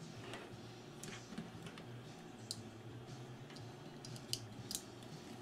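Light handling noise and a few sharp clicks as a new square rubber drive belt is stretched onto a cassette deck mechanism's motor pulley and flywheel, two clicks close together near the end. A low steady hum underneath.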